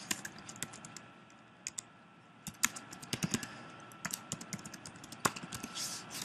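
Typing on a computer keyboard: quick runs of keystrokes, with a short lull about two seconds in.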